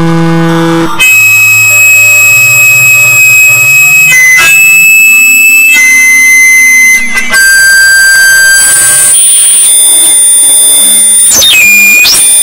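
Noise music: a pitched, guitar-like tone breaks off about a second in to a loud wall of electronic noise. The noise carries steady high tones and a low hum that slowly rises, and it cuts abruptly to a new texture every second or two.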